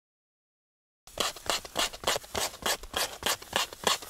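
A hand tool scraping in quick, even strokes, about three a second, starting about a second in.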